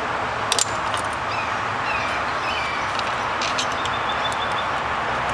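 Steady outdoor background noise with small birds chirping now and then, and a couple of light clicks, one about half a second in and another about midway.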